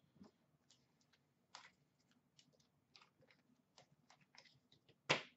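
Faint, scattered clicks and flicks of hockey trading cards being handled and flipped through, with one louder crisp rustle near the end.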